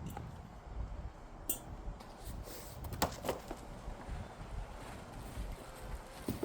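Cardboard packaging and plastic-wrapped parts being handled: a few rustles and knocks, bunched about a second and a half in and again around three seconds, over a steady low rumble of wind on the microphone.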